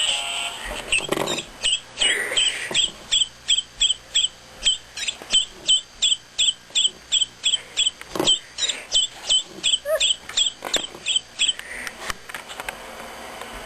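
A long run of short, high-pitched chirps, about three a second, each falling quickly in pitch. The run lasts about ten seconds, with a brief break near the middle.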